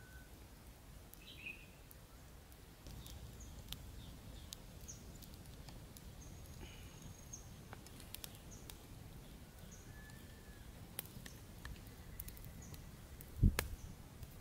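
A small wood fire of dry sticks crackling with sparse, sharp pops, and birds chirping now and then. A low rumble comes in about three seconds in, and a heavy thump comes near the end.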